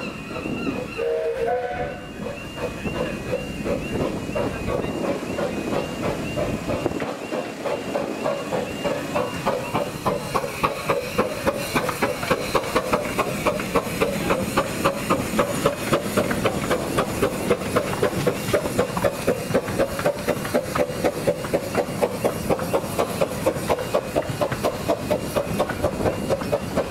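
A Romney, Hythe & Dymchurch Railway 15-inch-gauge steam train passes over a level crossing. A short whistle sounds about a second in, over the crossing's alarm tones. Then come the hiss of steam and, from about ten seconds in, a steady rhythmic clacking of carriage wheels over the rail joints, about three strokes a second.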